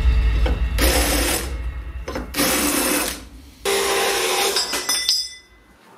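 Cordless drill with a stepped cone bit boring through a steel plate, running in short bursts that start and stop.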